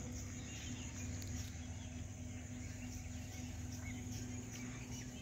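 Faint outdoor ambience: a steady low hum with insects calling and a short bird chirp just before four seconds in.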